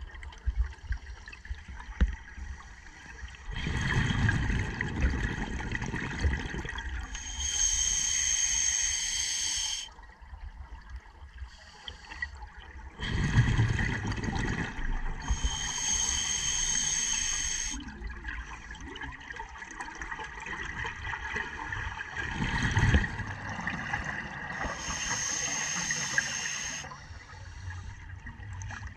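Scuba diver breathing through an open-circuit regulator underwater: about three slow breaths, each a hissing, faintly whistling inhale through the regulator alternating with a burst of bubbling exhaust bubbles.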